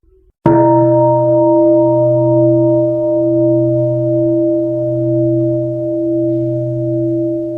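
A Buddhist mindfulness bell struck once about half a second in, then ringing on with a long, slowly fading hum whose deep tones swell and ebb gently.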